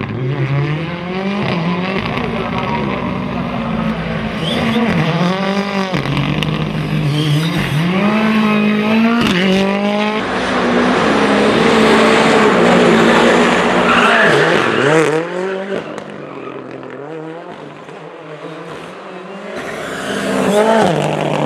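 Ford Fiesta rally car engine revving hard, its pitch climbing and dropping again and again as the driver accelerates, shifts and lifts off, with tyre squeal as the car slides through the corners. The sound fades about three-quarters of the way through, then grows again as the car comes back toward the microphone.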